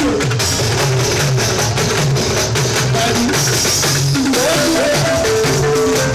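Loud live band music through PA speakers: a driving drum and percussion beat with a repeating bass guitar line and guitar notes.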